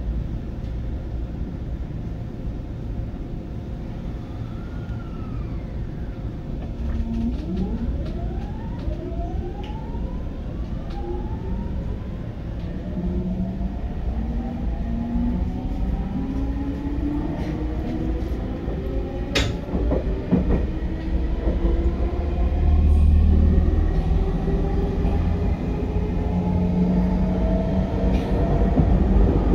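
JR 209 series electric train running, its GTO-thyristor VVVF inverter and traction motors whining under acceleration: several tones rise in pitch, some in steps, from about seven seconds in, over a low rumble that grows louder.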